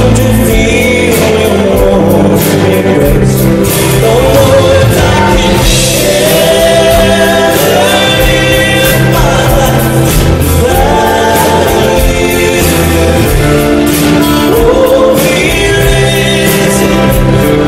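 Live country ballad played by a band: a male tenor sings lead over strummed acoustic guitar, bass guitar and drums.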